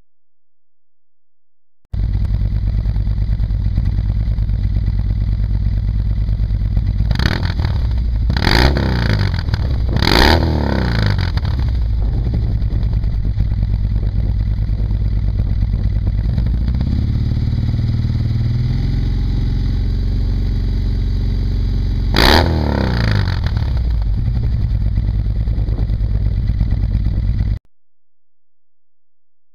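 Harley-Davidson touring bike's V-twin idling through SuperTrapp True Dual head pipes without a catalyst and Kerker Stout 4-inch slip-on mufflers. It gives three quick throttle blips about five to eight seconds in, then a slow climb in revs that is held for a few seconds, and one more sharp blip. The engine sound starts abruptly about two seconds in and cuts off about two seconds before the end.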